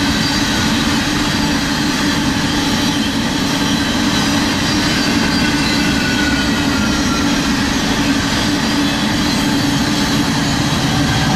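Empty coal cars of a fast-moving BNSF freight train rolling past, a steady loud rumble and rattle of wheels on rail, with a faint high wheel squeal at times.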